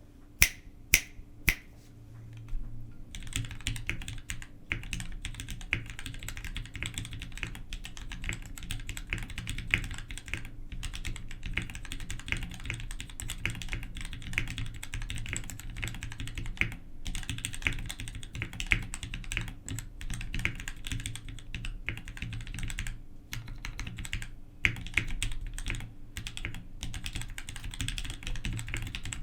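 Three sharp clicks in the first second and a half, then fast, continuous typing on a mechanical keyboard with Krytox-lubed Gateron REVO Pink switches and DCS-profile keycaps, broken by a few brief pauses.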